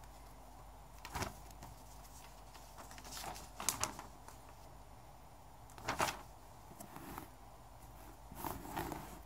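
Paper and cardboard being handled: a handful of short rustles and scrapes as a packing slip is pulled from a cardboard shipping box and the box is slid and turned on the carpet.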